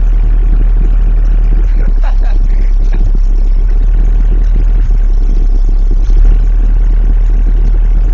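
An 18-inch subwoofer pushing a steady, very deep bass note at high volume, so loud that it overloads into a distorted, rattling rumble.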